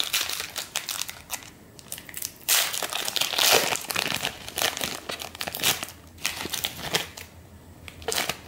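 Foil wrapper of a Fleer Ultra trading card pack crinkling in irregular bursts as it is opened by hand, loudest a few seconds in.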